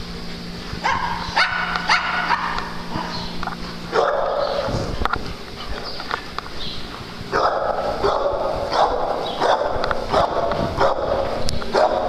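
Dogs barking and yipping in play, in short, irregular bursts that come thicker and faster in the second half.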